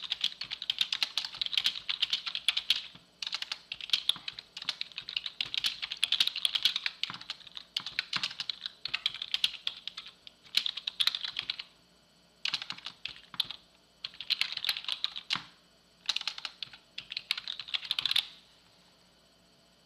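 Rapid typing on a computer keyboard, in bursts of fast key clicks with brief pauses in the second half, stopping near the end.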